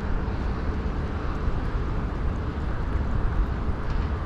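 Steady outdoor background noise by open water: a low, uneven rumble with a hiss above it, typical of wind buffeting the microphone, and a few faint ticks near the end.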